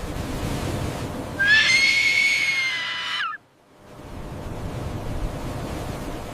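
An animal's single long, high call, held steady for nearly two seconds and dropping in pitch as it ends, over a steady rushing background noise.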